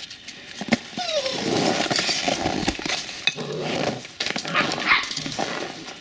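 Seven-week-old puppy barking, in a string of short, gruff barks that start about a second in.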